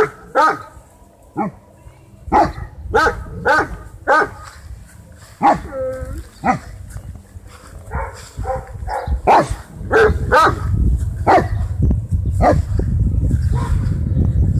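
Great Danes barking in short, repeated barks at irregular intervals, with one longer, wavering cry about six seconds in.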